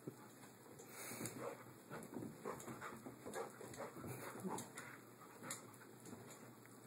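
Dog panting and scuffling about on carpet while chasing a laser dot: irregular short scuffs and breaths, with a faint whimper now and then.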